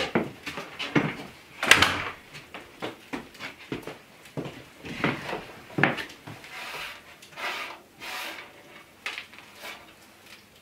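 Handling sounds at a wooden table: scattered light knocks and rubbing as hands move over a woven mat, with a sharper wooden knock about two seconds in.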